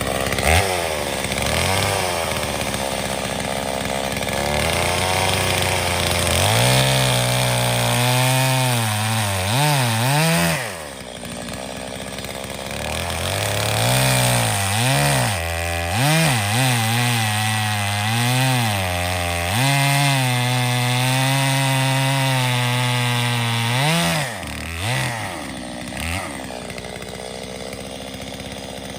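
Two-stroke chainsaw revving and cutting into a wooden log round, its pitch rising and dipping under load. It drops back to idle about ten seconds in, revs and cuts again, then falls back to idle near the end.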